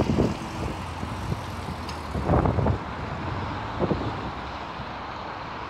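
A CAF Class 3000 diesel multiple unit pulling away in the distance, heard as a steady engine drone. Wind buffets the phone's microphone in gusts at the start and again about two and a half seconds in; these gusts are the loudest sounds.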